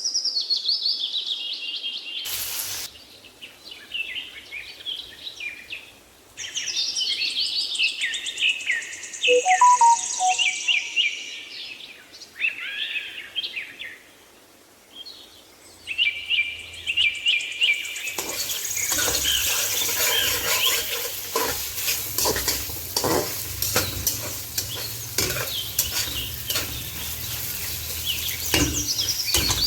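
Birds chirping and calling for the first half. About two-thirds of the way in, a steady sizzle of food frying in hot oil begins, with repeated clicks and scrapes of stirring in the pan.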